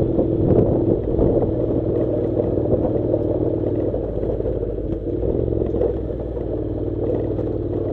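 Honda NC700 motorcycle's parallel-twin engine running at low, steady revs on a loose gravel track, with stones clicking and clattering under the tyres. The engine sound eases slightly in the second half.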